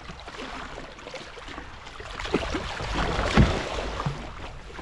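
A large hooked tope thrashing at the surface beside a sea kayak, splashing water. The splashing builds from about two seconds in, with several sharp slaps, the loudest about three and a half seconds in.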